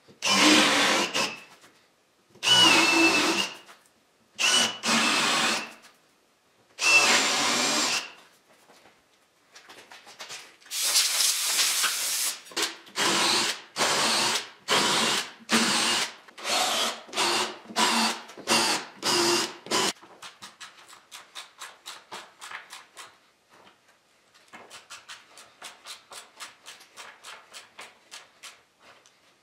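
Cordless drill with a Forstner-type bit boring shallow holes into a wooden tabletop, in four long bursts and then a run of about ten shorter ones. From about twenty seconds in, a ratchet driver clicks rapidly and lightly as it turns screws into the holes.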